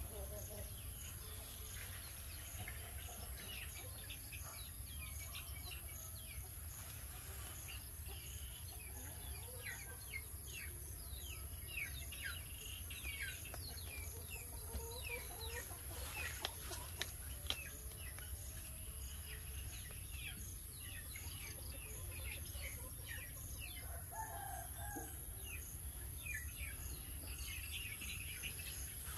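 Chickens clucking with many short, high, downward-sliding chirps from birds repeating, thickest about midway, over a steady low hum.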